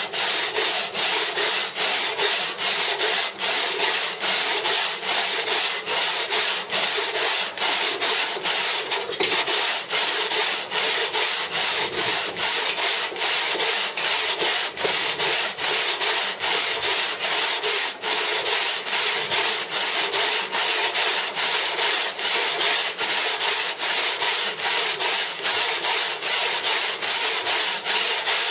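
Large hand saw cutting into a block of soft Bath Stone: a steady rhythm of rasping back-and-forth strokes, a little over two a second.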